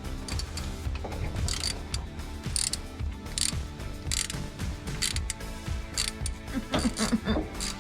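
Hand ratchet wrench clicking in repeated short strokes, about one a second, as it loosens the bolt fastening the negative battery cable to the engine block.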